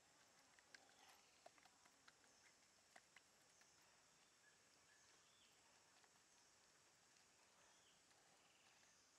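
Near silence: faint outdoor background hiss, with a few soft ticks in the first few seconds.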